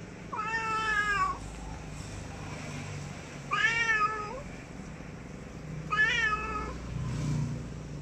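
A domestic cat meowing three times, each call about a second long and a couple of seconds apart, the last rising and then falling in pitch.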